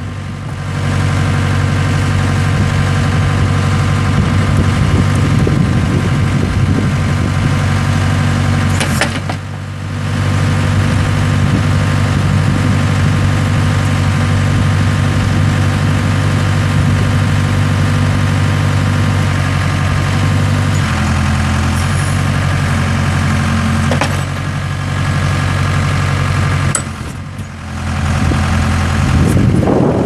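Case 580K backhoe's diesel engine running steadily while its backhoe boom, stick and bucket are worked. Its note steps in pitch a few times in the last third, and its level dips briefly twice.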